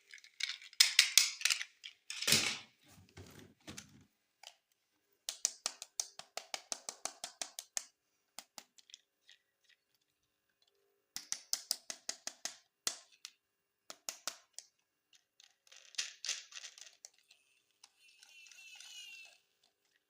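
Hard plastic toy pieces being handled, with runs of rapid sharp clicks and rattles, a heavier knock about two seconds in, and a softer rustle near the end.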